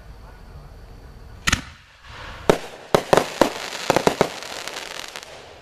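Fireworks going off: one loud bang about a second and a half in, then, after a brief lull, a quick run of sharp cracks and pops over a hissing crackle for about three seconds.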